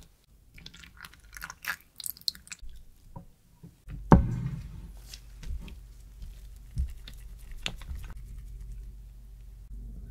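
Silicone spatula stirring thick melted dark chocolate in a ceramic bowl, with soft wet, squishy strokes. Scattered light clicks come first, and a sharp knock about four seconds in, after which a low steady hum runs underneath.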